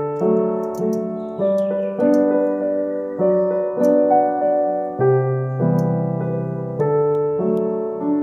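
Background music: piano or electric-piano keyboard playing chords and a melody at a steady pulse.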